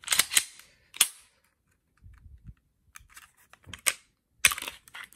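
Glock 19 Gen 3 pistol being field-stripped by hand: a handful of sharp clicks and clacks from the slide and the extended slide lock being worked, spread over a few seconds.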